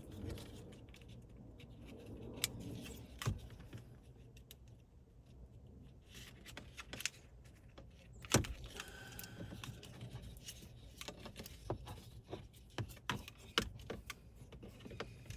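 Scattered small clicks and light rattles of wire pin terminals and a plastic connector being handled, one sharper click a little past halfway, over a faint steady low hum.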